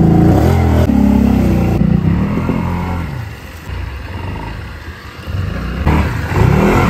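Kawasaki Brute ATV engine revving and falling back: it settles to a low idle about halfway through, then revs up again near the end.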